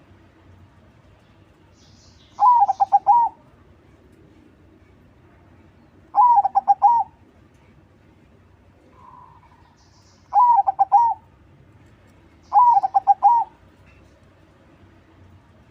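Zebra dove (perkutut, a crossing song line) cooing: four phrases of quick rolling notes, a few seconds apart, with faint high chirps over some of them.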